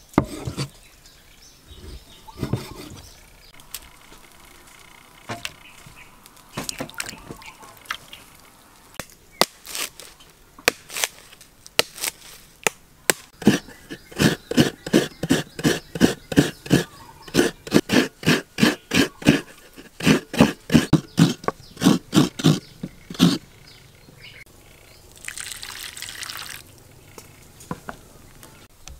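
A few knife strokes on a wooden cutting board, then a halved coconut grated on a coconut scraper: a long run of rhythmic rasping strokes, about two or three a second, lasting some ten seconds. A short hiss follows near the end.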